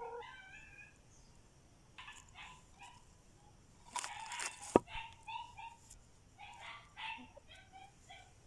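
Chicken making short, repeated pitched calls. About halfway through there is a brief rustling burst, then a single sharp click.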